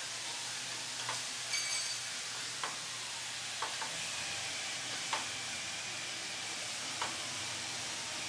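Steady background hiss with scattered sharp metallic clicks and one short metallic ring, from a wrench and socket working the conveyor's take-up adjustment bolts loose.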